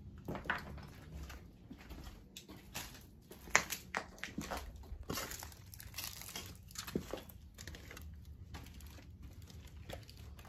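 Footsteps crunching over a debris-strewn floor: a run of irregular crackles and sharp snaps from broken material underfoot.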